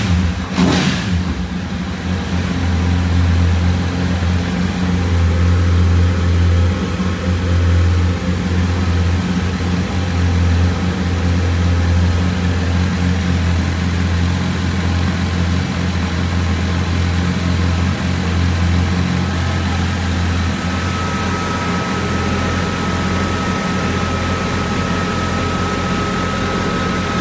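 2004 Honda CBR1000RR's inline-four engine, given a quick rev in the first second and then idling steadily while its throttle bodies are synchronised. A faint, steady high whine joins about three-quarters of the way through.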